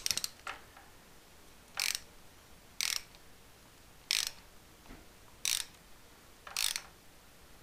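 A hand ratchet clicking in five short bursts, about one a second, as it swings back between strokes turning a Time-Sert seat cutter. The cutter is cutting a fresh spark plug washer seat in the aluminium cylinder head.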